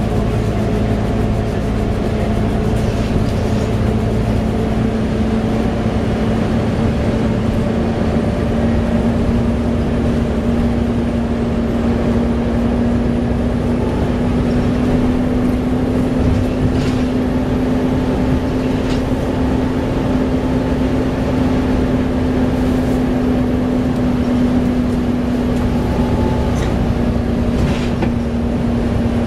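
Volvo B7TL double-decker bus heard from on board: its six-cylinder diesel engine and cooling fan running hard at a steady speed, a loud, even drone that barely changes in pitch.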